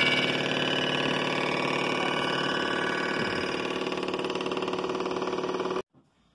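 Cylinder-head surfacing machine running with a steady, even hum and whine while it trues the warped deck of a 12-valve Cummins head. The sound cuts off suddenly near the end.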